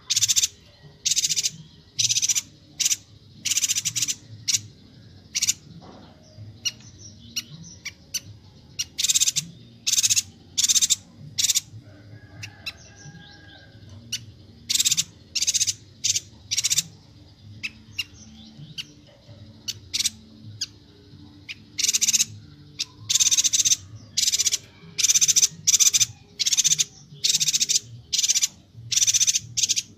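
Yuhina (the Bornean 'yuhina kalimantan') calling: rapid short high-pitched chirps in quick clusters, thinning out briefly around the middle, over a faint steady low hum.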